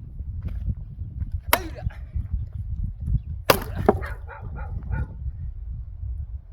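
Axe chopping firewood: two sharp splitting strikes about two seconds apart, the second followed by a lighter knock and a brief clatter of wood, over a steady low rumble.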